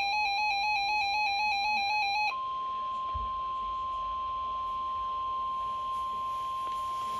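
NOAA Weather Radio Emergency Alert System activation through a weather radio's speaker. The rapidly warbling digital SAME header data ends about two seconds in. It is followed by the steady 1050 Hz warning alarm tone, a single unbroken high tone that signals a warning such as a tornado warning is about to be read.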